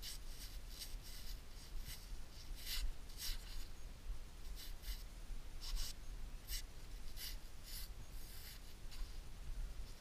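A long metal digging knife scraping soil off a dug-up, corroded copper pot: short, scratchy strokes at irregular intervals, about one every half second.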